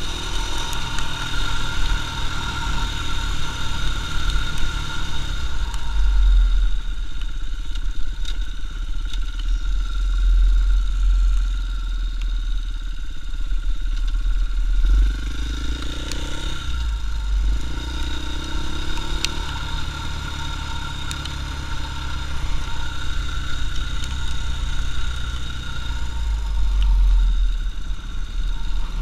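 KTM EXC 450 enduro motorcycle's single-cylinder four-stroke engine running under way, over a heavy low rumble of wind on the microphone. About halfway the engine note rises, drops sharply and then climbs again as the bike pulls away.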